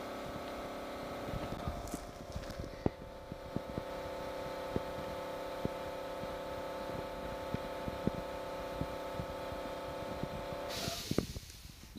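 Small RC car's electric drive motor and gears whining steadily as it spins donuts, with scattered clicks and ticks. The whine cuts off suddenly near the end, leaving only the clicks.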